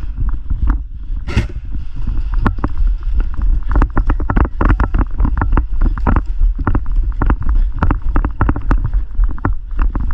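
Low wind rumble on the microphone with many sharp clicks and knocks in uneven runs, the kind made by airsoft guns firing and gear rattling during play.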